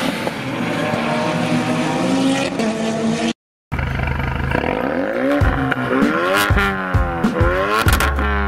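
Engine of the Mk2 Ford Focus Silhouette race car, a 2.3-litre Duratec four-cylinder, running hard with a fairly steady pitch for about three seconds, then a sudden cut to silence. After the cut, music with repeated rising and falling sweeping tones and sharp regular beats.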